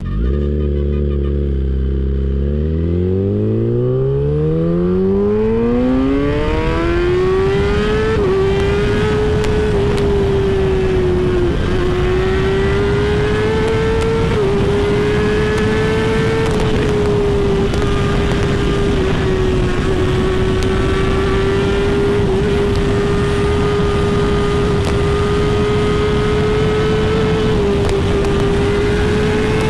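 Bajaj Dominar 250 motorcycle's single-cylinder engine revving up from low revs over the first several seconds, then holding high and steady with slight rises and dips in pitch.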